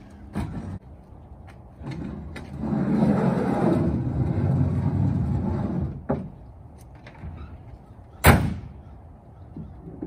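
EZ-Lift HiveTruck, a metal two-wheeled hive hand truck, knocking as it is lifted in, then scraping and rattling for a few seconds as it is shoved along a pickup bed. A little past two-thirds through comes one sharp, loud bang as the pickup's tailgate is slammed shut.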